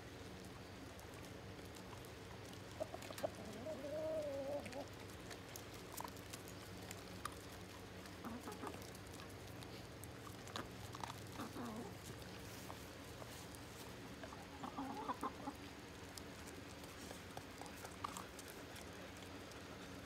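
Chickens clucking now and then while they feed, with a longer drawn-out call about four seconds in and shorter clucks later.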